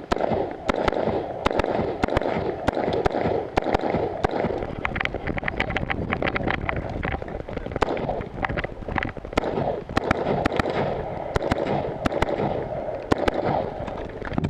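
Rifle shots fired in quick strings, several a second at times with short pauses between, over a steady rushing noise.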